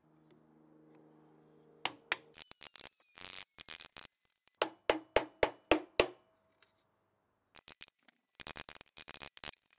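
Metal tools and old motor parts clicking and clinking as they are handled, with a run of about six evenly spaced ringing metal knocks, about three a second, midway through.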